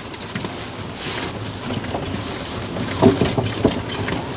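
Storm wind blowing hard and gusting, with a few knocks about three seconds in.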